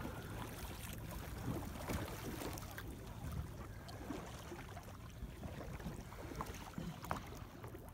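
Water sloshing and splashing around a kayak as it is paddled, over a steady low rumble of wind on the microphone.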